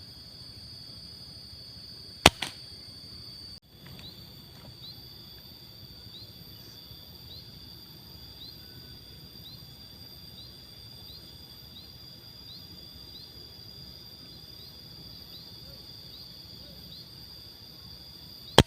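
Two sharp shots from a pump air rifle, one about two seconds in (followed by a smaller click) and one near the end. Under them runs a steady high insect drone with a faint, evenly repeated rising chirp.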